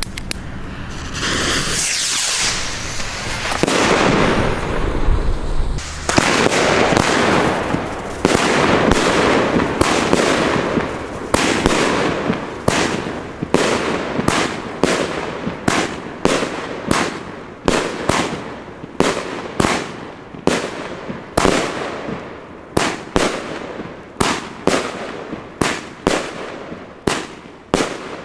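Funke Corolla Variations 30 mm firework battery firing. Its shots come in a dense, overlapping run at first, then settle into separate sharp reports about once a second, each trailing off.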